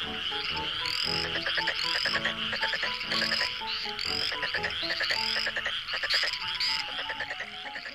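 Comic background music with frog-like croaking and a rising chirp repeating every half second or so. The croaking fades out near the end.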